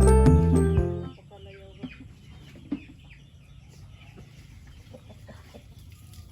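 A bell-like music tune ends about a second in. After it, chickens cluck and chirp faintly in a scattered run of short calls.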